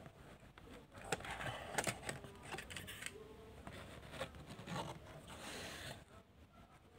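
Cardboard window box with a clear plastic front being handled and turned over, giving several sharp crinkling clicks of the plastic and a brief rustling scrape near the end.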